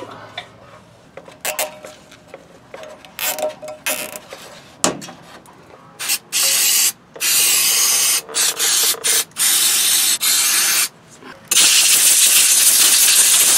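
A ratchet wrench clicking in short strokes as the new NOx sensor is tightened into the exhaust. From about six seconds in, an aerosol can sprays in a series of hissing bursts onto the sensor's wiring connector; the last burst near the end is the longest, about three seconds.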